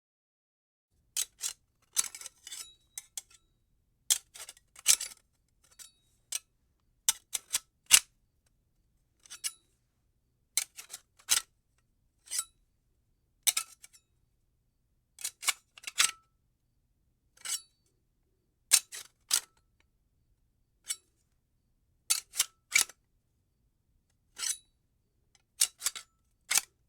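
Metal handcuffs clicking and clinking: short bursts of sharp metallic clicks, alone or a few in quick succession, with pauses between.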